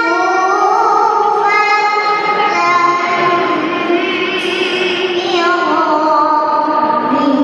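A young girl's voice reciting the Quran in melodic tilawah style, holding long notes with wavering, ornamented turns in pitch.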